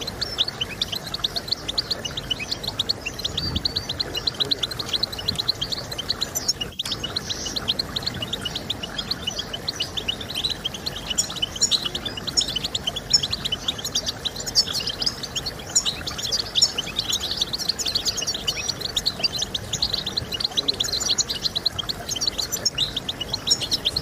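European goldfinch singing: a fast, continuous twittering of short high chirps, broken once by a momentary gap about seven seconds in.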